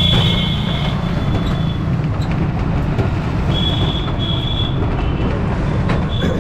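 Steady low rumble of a vehicle riding through city traffic, with a high-pitched tone at the start and again twice in the second half.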